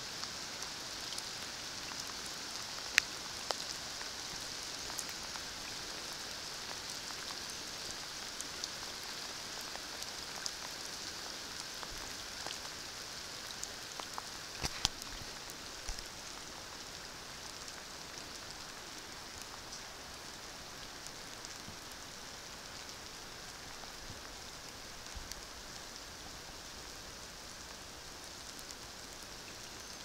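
Rain falling on wet rainforest foliage and water, a soft steady hiss with a few scattered sharp taps and drips.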